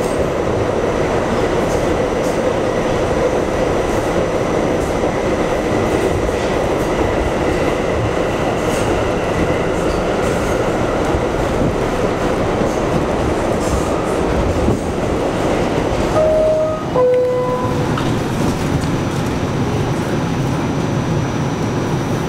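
Bombardier R179 subway car running through a tunnel: a steady noise of wheels on rails, with a short two-note tone about three-quarters of the way through.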